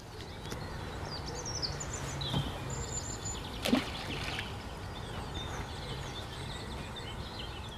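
Small birds chirping repeatedly over a steady low rumble of outdoor background noise, with one brief louder sound about halfway through.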